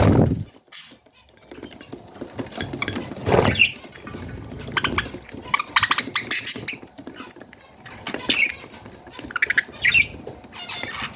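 Baby budgerigars chirping in short, scratchy calls, with a quick run of ticks about six seconds in. A dull thump right at the start and another about three and a half seconds in are the loudest sounds.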